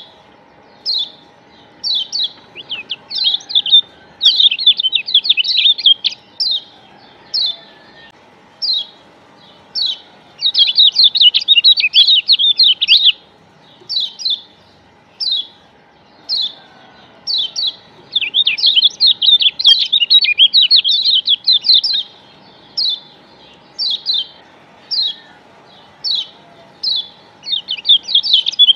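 Kecial kuning Lombok, a yellow white-eye (Zosterops), calling with short high chirps about once a second. These break three times into rapid twittering runs of a few seconds each, the loudest parts. A faint steady hum lies underneath.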